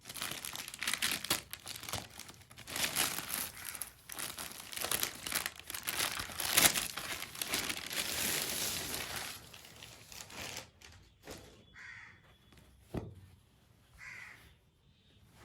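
Packaging around new jeans crinkling and being torn open, a busy crackle for about ten seconds that then dies down, with a single knock near the end.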